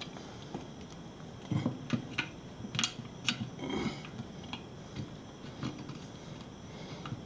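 Small clicks and knocks of a TPMS tire sensor and its metal and plastic parts being handled and fitted into the valve hole of an aluminium alloy wheel. The clicks are bunched together from about a second and a half to four seconds in, then thin out to a few light taps.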